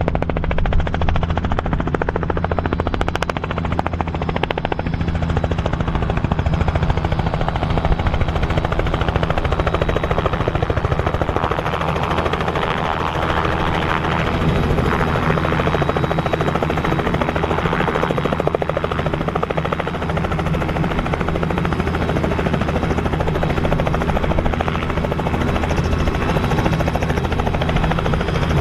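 Robinson R66 turbine helicopter flying in, hovering low and setting down, its main rotor beating steadily over the engine's running noise; loudest around the middle as it hovers close by.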